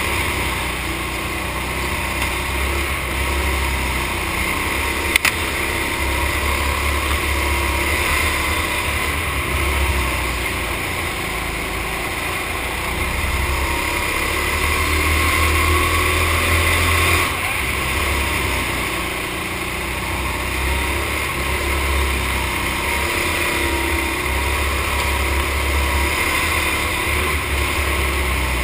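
Go-kart running at race pace, its motor pitch rising and falling with speed through the corners, under a low, pulsing wind rumble on the helmet-mounted camera. A single sharp click about five seconds in.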